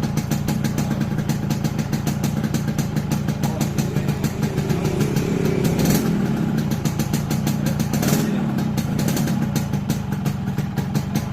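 Yamaha RX-King's 135 cc single-cylinder two-stroke engine running at idle with rapid, even firing pulses, revving up briefly a couple of times past the middle, during tuning for a mild, not-too-raspy exhaust note.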